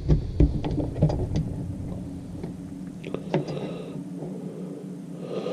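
Handling noise: a string of light clicks and knocks as a small measuring tape is picked up and laid against a folding knife's blade, over a steady low hum.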